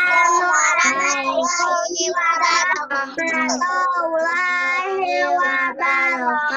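A group of young children singing a prayer together in a sustained chant over video-call audio, with several voices running on with only short breaks.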